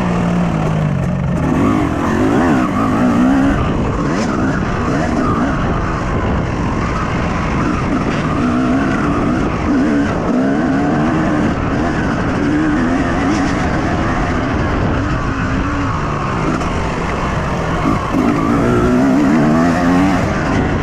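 Yamaha YZ250 two-stroke motocross engine heard on board while riding, revving up and dropping back over and over as the throttle is opened and closed around the track.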